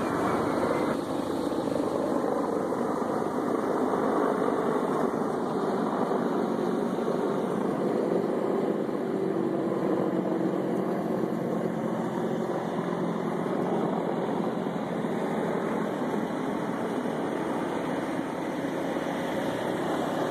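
CH-53 Super Stallion helicopters flying over, a steady noise of rotors and engines.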